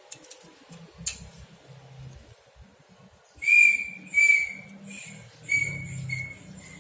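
A series of about five short, high, steady whistled notes, starting about halfway in, with a couple of sharp clicks before them.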